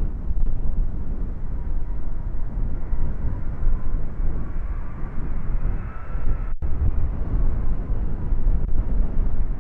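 Strong wind buffeting the microphone with a low rumble, over the faint whine of the jet engines of a Lufthansa Airbus A330-300 on final approach, which rises and falls in the middle. The sound drops out for an instant a little past halfway.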